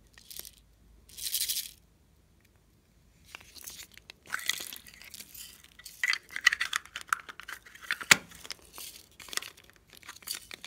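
Slime topped with foam beads and sprinkles crackling and crunching as plastic molds are pressed and shifted on it, with small plastic clicks and one sharp click about eight seconds in. A short hiss comes about a second in, before the crackling starts.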